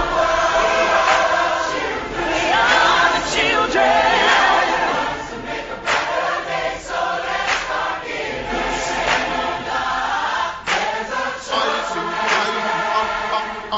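A choir singing over backing music, with no clear lead words.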